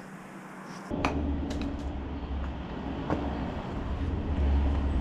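Bobcat skid-steer loader's engine idling as a steady low hum, starting about a second in, with a few sharp clicks of stone on stone.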